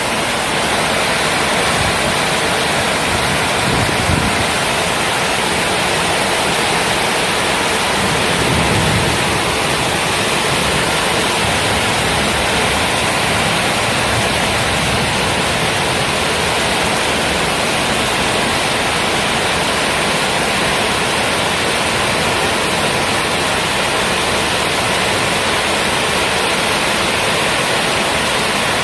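Heavy tropical downpour: a steady, loud hiss of rain, with a brief low rumble swelling about four seconds in and again near nine seconds.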